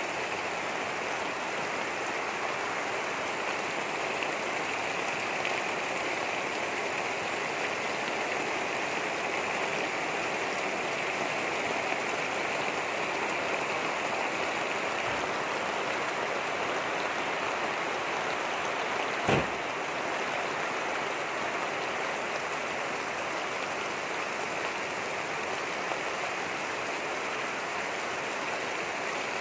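Steady rain falling, an even hiss that does not let up. About two-thirds of the way through there is a single sharp knock.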